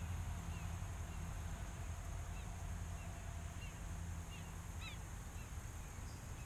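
Quiet outdoor pond ambience: a steady low rumble under short, scattered bird calls, the clearest about five seconds in.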